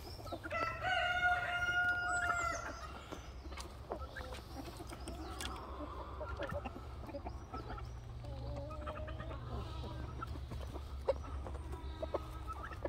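A rooster crows once, a long held call that starts about half a second in and lasts around two seconds, with hens clucking around it. A shorter pitched call comes about eight seconds in.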